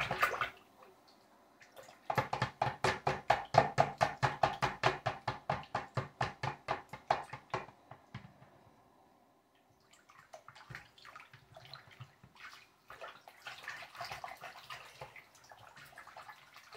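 Water sloshing and splashing in a filled bathroom sink as a hand moves a small plastic toy through it: a quick, even run of splashes, several a second, for about five seconds, then after a pause softer, irregular sloshing.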